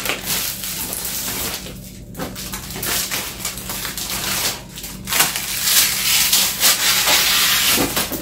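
A thin plastic sheet crinkling and rustling as it is pulled off and bunched up by hand. It gets louder about halfway through.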